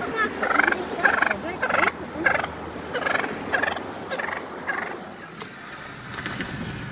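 Wild turkey tom gobbling, a run of short calls about two a second that tapers off after about five seconds.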